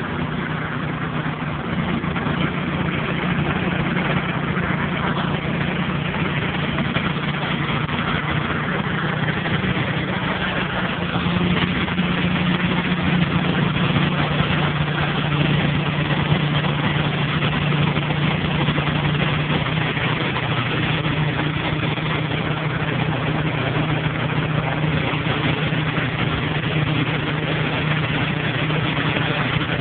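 An engine running steadily at constant speed, with an even rough hiss over its hum.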